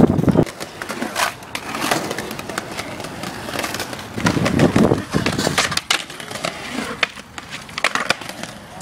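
Skateboard riding on concrete: the wheels rolling, with many sharp clacks and knocks from the board.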